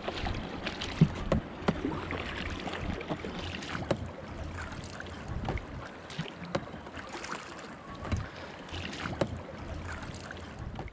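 Paddle strokes in the water as a small dinghy is paddled with a double-bladed paddle, with irregular splashes about every second or so. Wind rumbles on the microphone throughout.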